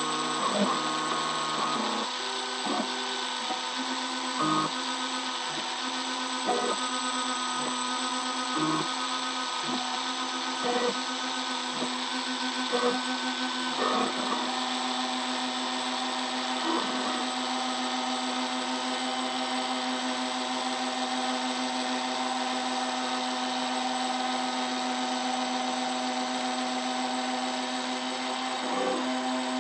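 CNC router spindle running with a steady high-pitched whine while a small engraving bit mills copper traces on a circuit board. The sound swells briefly every two seconds or so through the first half, then runs evenly.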